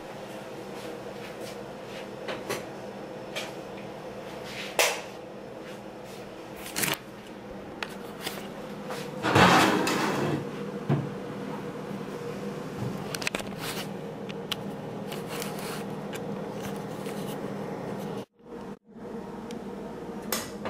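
Scattered kitchen knocks and clicks over a steady hum, with a louder rustling, bumping stretch about halfway through as the camera is picked up and handled. The sound cuts out briefly twice near the end.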